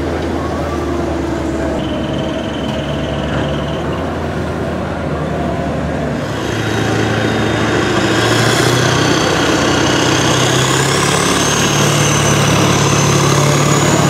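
Kirovets K-700 tractor's diesel engine, running steadily at first, then about six seconds in going under full load to pull the sled: it grows louder and deeper, with a high whine slowly rising in pitch.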